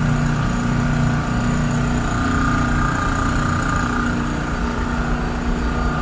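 Steady low machinery hum with a few unchanging tones running under it, with no start, stop or change in speed.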